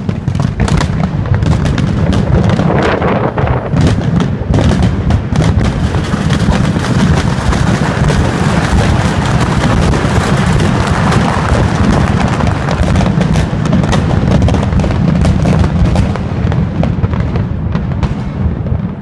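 Aerial fireworks going off in rapid, overlapping bangs and crackles over a continuous low rumble, thinning out near the end.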